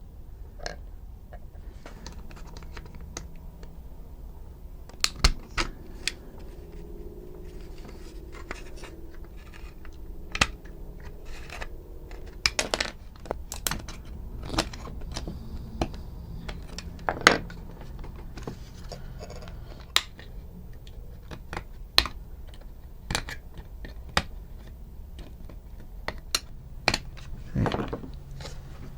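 Scattered sharp clicks and light clatter of small plastic toy parts being handled and pried apart, over a low steady hum.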